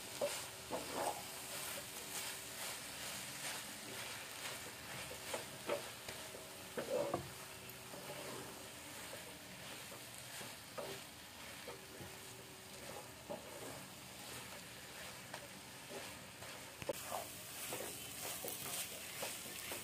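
Wooden spatula stirring and scraping thick carrot halwa (grated carrot, sugar, ghee and milk powder) around a nonstick frying pan, with a faint steady sizzle of the mixture frying in ghee, in short irregular strokes.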